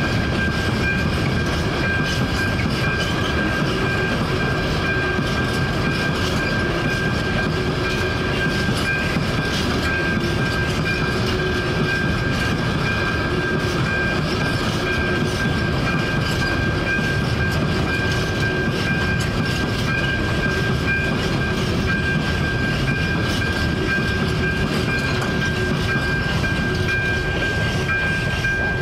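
Freight train wagons rolling over a railway level crossing, wheels clattering on the rails in a steady rumble. Throughout, the crossing's ZV02 electronic warning bell sounds a steady high tone over it.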